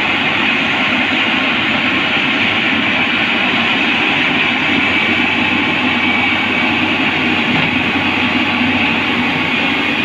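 Tata Hitachi EX210LC crawler excavator's diesel engine running hard with a steady clatter of its steel tracks as it drives up onto a lowbed trailer, a loud, unbroken mechanical din.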